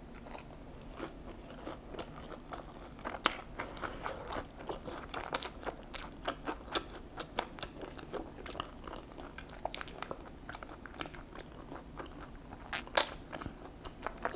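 A person biting into and chewing a chewy fried cheese ball close to the microphone: an irregular run of small crunches and mouth clicks, with two sharper crunches about three seconds in and near the end.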